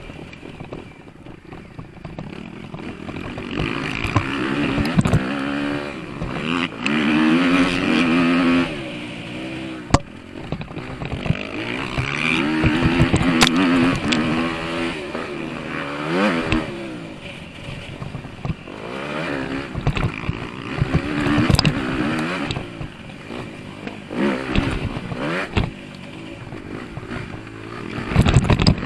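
Motocross dirt bike engine heard from on the bike, revving up and easing off again and again as the throttle is worked around the track. Clattering knocks from the bike over bumps run through it, with a heavy thump near the end.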